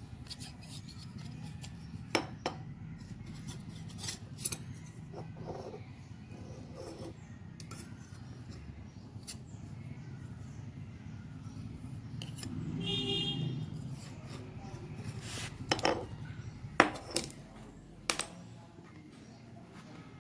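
Metal tools and parts clinking and clicking as they are handled, in scattered single knocks that come more often and louder near the end, over a steady low hum.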